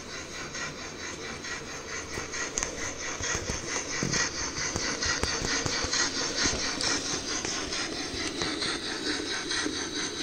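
OO gauge model steam locomotive and goods wagons running along the track: a steady whir with a fast, even ticking, growing louder about four seconds in as the train nears and passes.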